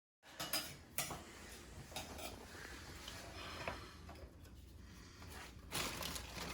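Faint scattered clicks and knocks of hand work on a toilet being removed, a handful of small sharp taps over a low room hum.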